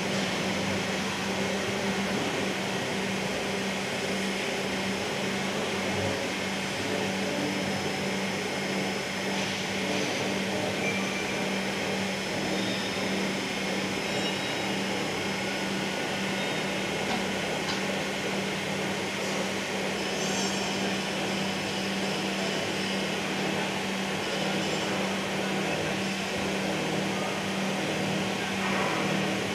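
Steady hum of factory machinery: a constant low drone under an even hiss, unchanging throughout.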